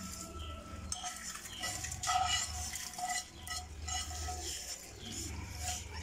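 A spoon scraping and knocking against a nonstick frying pan as roasted grated coconut is scraped out of it, in irregular scrapes and clinks.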